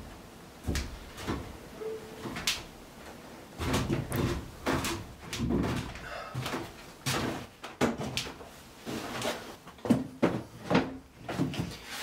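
Irregular knocks and thumps of footsteps and timber being handled and set down inside a small wooden boat cabin.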